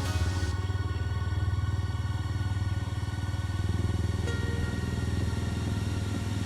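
Walkera Rodeo 110 mini FPV racing quadcopter in flight, its motors and propellers running with a steady whine.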